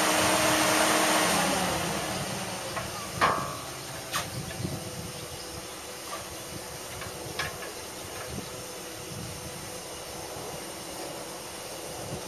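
An engine running with a steady hum that winds down and fades about two seconds in. It leaves a steady hiss with a few sharp knocks, the loudest a little after three seconds.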